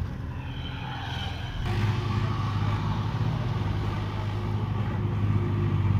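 A nearby engine running steadily at idle with a low hum. It gets louder and fuller about two seconds in.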